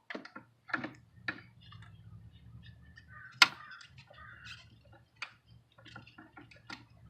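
Irregular clicks and metallic taps of a small hand tool working loose the little screws that hold the ignition coils down, with one sharp, louder click about three and a half seconds in. A faint steady low hum lies underneath.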